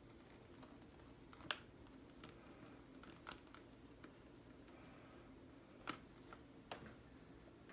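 Scattered small, sharp clicks and taps of hard plastic laptop parts and screws being handled, the loudest about a second and a half in and again just before six seconds, over near-silent room tone.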